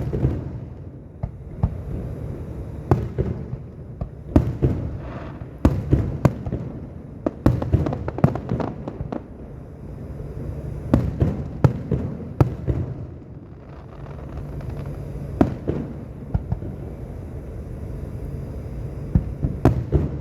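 Aerial fireworks going off: sharp bangs at irregular intervals, coming in bunches, over a steady low background noise.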